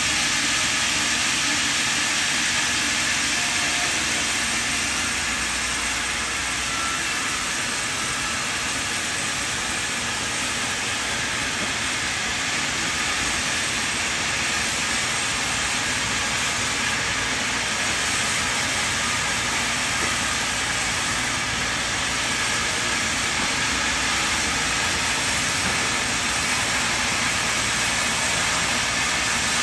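Sawmill band saw running and cutting a slab off a log: a loud, steady rushing noise of the blade through the wood, without a break.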